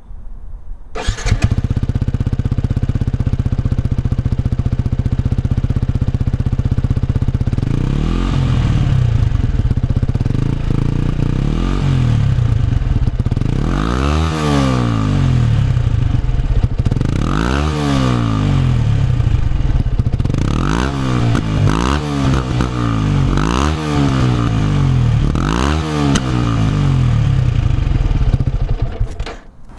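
Yamaha YZF-R125's single-cylinder 125 cc four-stroke engine through an Akrapovic exhaust. It idles steadily, then is revved in about nine short blips that rise and fall in pitch, coming quicker in the second half, and cuts off near the end.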